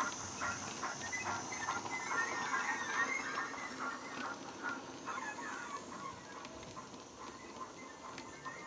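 Sound-fitted model USA tank locomotive's Loksound DCC decoder playing steam exhaust chuffs in a steady beat through its small speaker, with a hiss, growing fainter as the loco runs away with its coaches.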